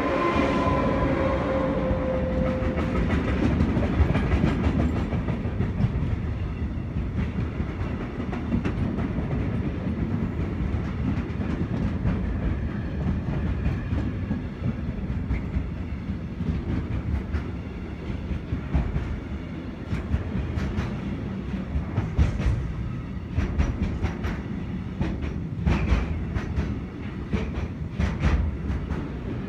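Pesa Gama 111Ed electric locomotive passing close by with a steady whine that fades in the first few seconds, then the continuous rumble of intermodal container and tank-container wagons rolling past. Sharp clicks of wheels over the track come more and more often in the second half.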